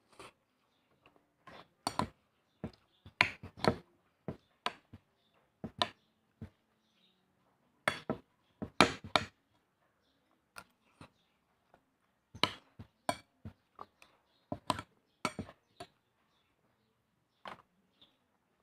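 A metal spoon clinking and scraping against a bowl of noodles: short, sharp clicks at irregular intervals, some coming in quick clusters of two or three.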